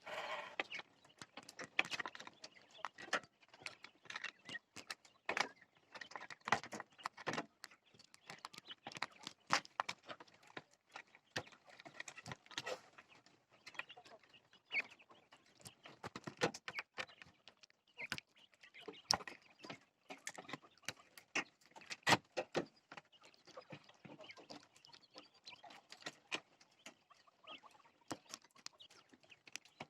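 A flock of jumbo quail making many quick, irregular clicks and taps, with a few short calls among them.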